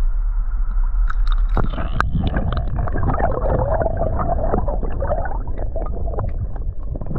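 River water heard through a camera held underwater: a muffled, low rumbling rush with gurgling, and scattered clicks and knocks from about a second and a half in.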